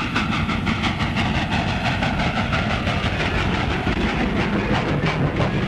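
A loud mechanical clatter with a fast, even beat, like a vehicle running.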